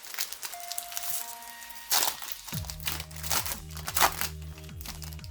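Foil booster pack wrapper crinkling as it is torn open, in several crackly bursts. Background music with a bass line comes in about halfway.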